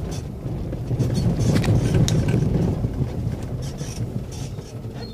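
Low engine and road rumble heard from inside a slowly moving vehicle, swelling louder a second or two in, with a few short clicks and rattles.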